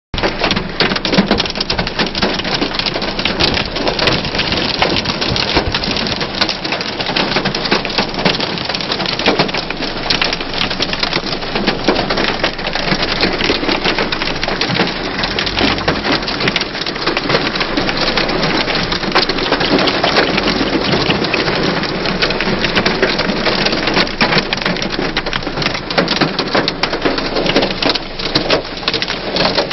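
Hailstorm: hailstones pelting down on the car and the ground in a dense, unbroken clatter of small hits mixed with the hiss of heavy rain.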